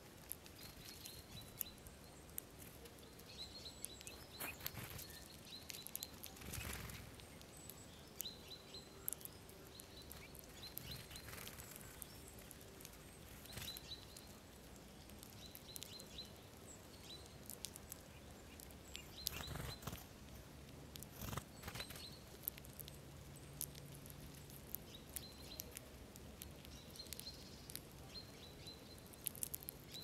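Small songbirds calling with short, high chirps every second or two, mixed with light clicks and a few brief rustles.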